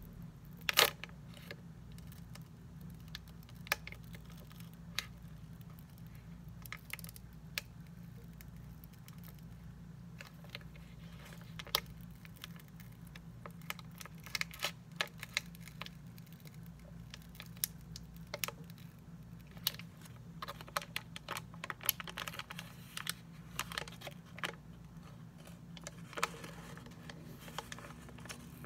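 Crinkling and crackling of a plastic snack-cake wrapper as fingers pick and tug at it while it resists tearing open, in scattered sharp crackles over a steady low hum.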